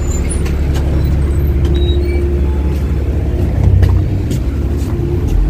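City bus engine running with a steady low rumble, heard from inside the bus, with a few light clicks and knocks.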